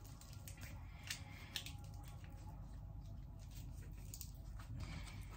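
Faint rustling and small crackles of bruised lemongrass stalks being bent and tied into a knot by hand, over a low steady hum.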